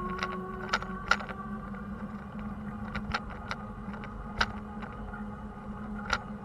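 Steady low engine hum of traffic, with about eight short sharp clicks and rattles scattered through it.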